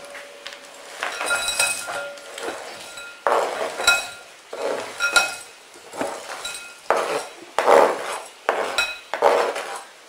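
Chopped dark chocolate being scraped off a plastic chopping board into a glass bowl. Repeated scraping strokes and pieces dropping in, with the glass bowl giving a light ringing clink now and then.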